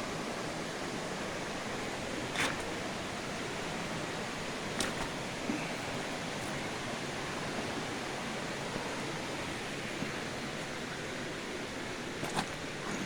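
Steady rushing of a small creek's flowing water, with a couple of faint clicks about two and a half and five seconds in.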